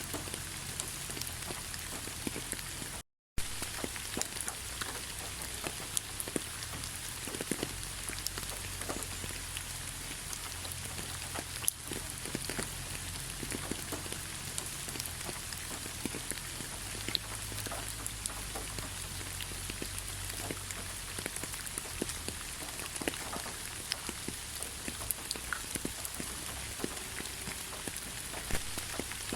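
Steady rain falling, with many separate drops ticking on a surface. The sound cuts out to silence for a moment about three seconds in.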